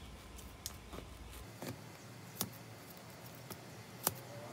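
Quiet handling noise: a few faint, scattered clicks and soft rustles as a hand pulls and tears pieces of foam from a seat cushion.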